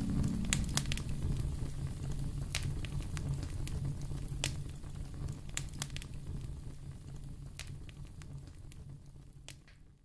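Wood fire in a fireplace crackling, with scattered sharp pops over a low steady rumble, fading out gradually toward the end.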